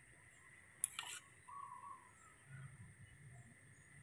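A newborn baby monkey gives one short, faint squeak about a second and a half in, just after a sharp click, during spoon-feeding. A faint steady high whine runs underneath.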